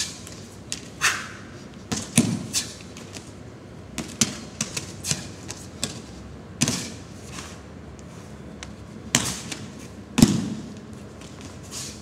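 A long wooden staff swishing through the air in sharp, irregular whooshes during a southern staff (nangun) routine, with several thuds on the floor mats. The loudest thud comes about ten seconds in.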